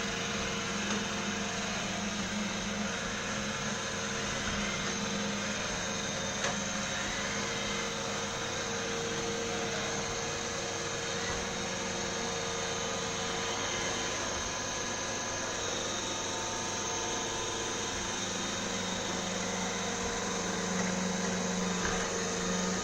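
iRobot Roomba i7 robot vacuum running as it cleans: a steady motor hum over a rushing noise, the low hum fading for a while and growing stronger again near the end.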